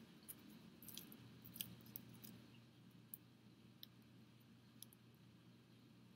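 Near silence with faint, scattered clicks and taps from a needle and syringe being handled, and a faint steady low hum setting in about a second in.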